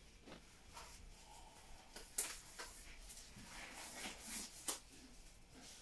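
Disposable gloves being pulled on over the cuffs of a disposable isolation gown: soft rustling of the gown and gloves, with a couple of sharper snaps, one about two seconds in and another near the end.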